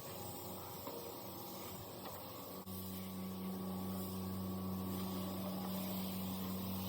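Steady hiss, joined suddenly about two and a half seconds in by a steady low machine hum that holds to the end.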